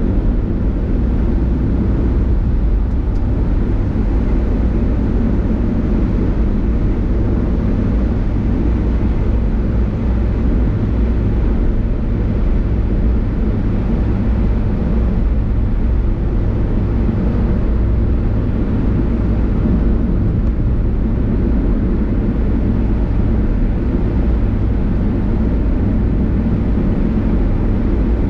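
Steady low rumble of a car driving on a highway, with engine and tyre-on-road noise and no distinct events.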